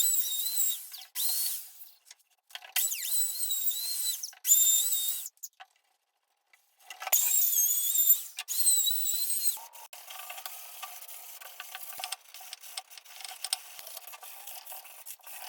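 Woodworking power tool whining at high pitch in short bursts of about a second each, spinning up and down. From about ten seconds in it gives way to a quieter, steady running with a rubbing sound.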